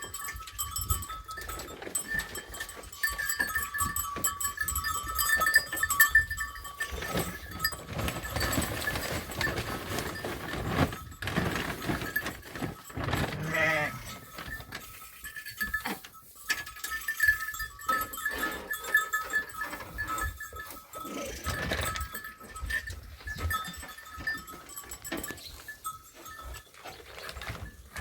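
A flock of sheep bleating at intervals, among scattered knocks and rustling.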